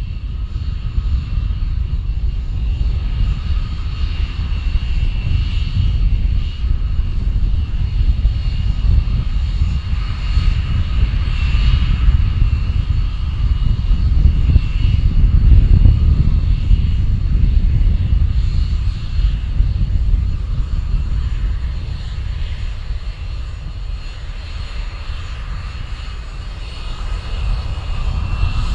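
Four Avco Lycoming ALF 502 turbofans of a BAe 146-100 running as the jet taxis, a steady whine over a deep rumble. It grows louder in the middle and eases off again.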